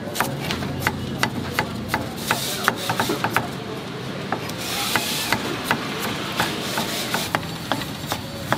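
A cleaver chopping cucumber on a round wooden chopping block: sharp knocks of the blade striking the wood, about three a second and slightly uneven, with a brief hiss about five seconds in.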